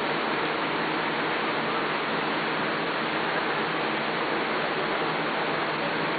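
Steady, even hiss of background noise, with no changes and no distinct events.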